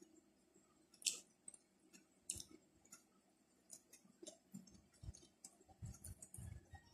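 A person eating: quiet chewing and wet mouth clicks over a mouthful of pork larb, with two sharper clicks about a second in and again a second later, and a run of soft low thuds from the chewing near the end.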